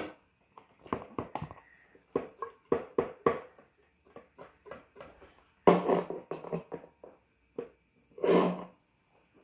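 Water and air spurting from a squeezed plastic water bottle in short, irregular sputters, with two longer, louder sputters in the second half.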